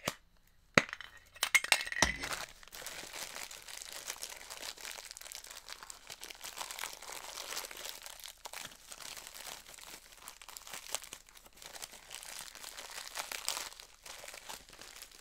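A metal Funko Soda collectible can being handled and opened, with a sharp click about a second in and a few clinks and knocks soon after. Then a steady crinkling of the plastic wrapping around the figure inside.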